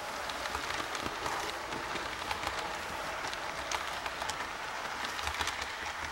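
Model train of double-deck M6 passenger coaches rolling past on layout track: a steady rattling run of many small wheel clicks over a low motor hum.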